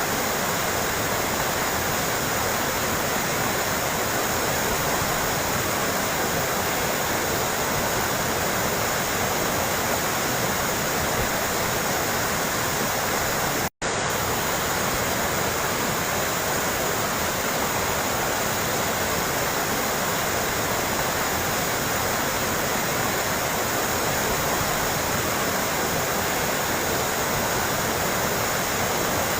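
Continuous trickling, splashing water, steady and even. It cuts out for a split second about halfway through.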